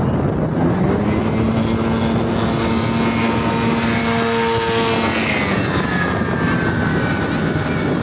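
Paramotor trike's propeller engine running hard for takeoff. Its steady engine tone settles about a second in and then falls in pitch through the second half as the trike lifts off and climbs away.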